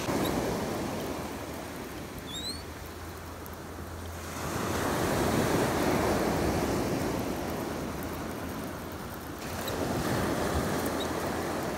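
Small waves washing up a sand and fine-gravel beach, the surf swelling louder about halfway through and again near the end.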